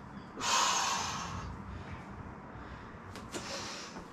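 A woman's forceful exhale of exertion, one noisy breath lasting about a second, while doing dumbbell reverse lunges. A couple of faint clicks follow about three seconds in.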